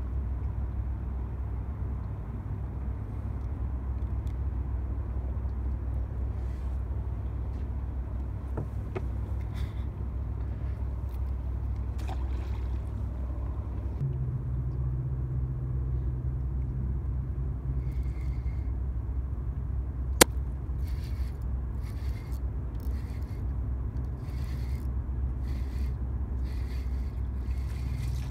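A steady low rumble runs throughout, and a low, even hum joins it about halfway through. A single sharp click comes about two-thirds of the way in, followed by a run of short scraping strokes near the end.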